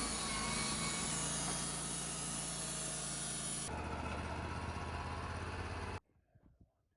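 Engine-driven band sawmill running, the blade cutting through a cedar log with a loud, dense hiss over the engine's steady note. A little past halfway the high hiss drops away and the engine runs on alone, then the sound cuts off abruptly near the end.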